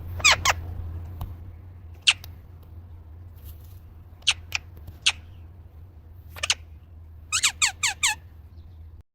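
Short, high squeaks falling steeply in pitch from toy parrot Polly: two near the start, a few scattered through the middle, then a quick run of five near the end. A low steady hum runs underneath.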